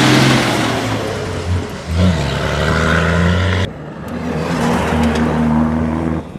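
Cross-country rally car engines running at high revs, in two shots joined by an abrupt cut about three and a half seconds in. In the first shot the engine note drops and picks up again near two seconds, like a gear change.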